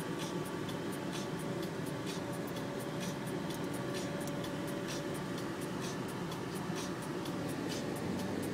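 Cabin noise inside a car in slow city traffic: a steady low rumble of engine and road with a faint hum. Frequent irregular scratchy ticks come about three times a second.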